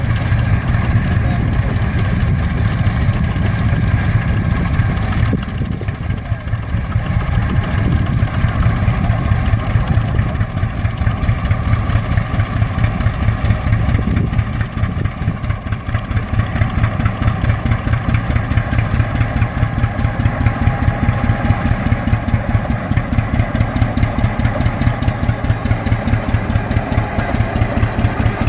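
Rumely OilPull tractor engine pulling a plow, its exhaust firing in an even rhythmic beat of roughly four to five a second. The beat grows more distinct toward the end as the tractor comes close.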